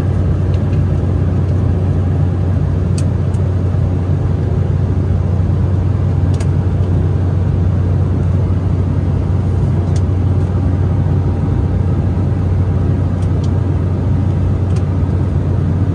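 Steady low drone in the passenger cabin of an Embraer E190 airliner, from its turbofan engines and the airflow past the fuselage. A few faint paper rustles come through as the seat-pocket card and magazine pages are turned.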